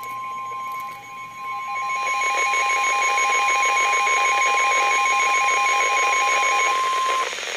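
NOAA Weather Radio's 1050 Hz warning alarm tone: one steady, loud tone that cuts off after about seven seconds. A rapidly pulsing beep at other pitches sounds alongside it, and radio static hiss rises under it about two seconds in.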